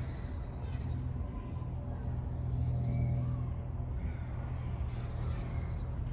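Steady low rumble of road traffic from a nearby high street, with faint bird chirps above it.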